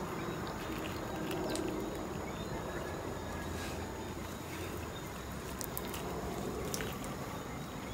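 Quiet rural outdoor background: a steady high-pitched insect drone with a few faint clicks and a faint low hum that swells and fades.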